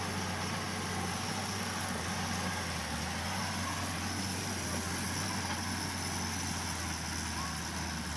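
Diesel engine of a Halla 130 wheel excavator running steadily as it works, a low even hum.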